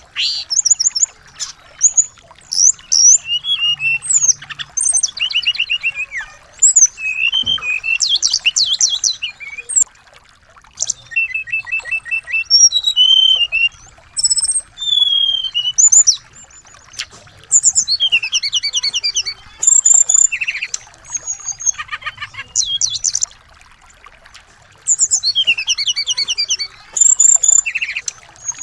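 Recorded song of small songbirds: rapid high chirps, trills and whistled glides in bursts separated by short pauses. It is a tutor recording played to white-rumped shamas to make them sing.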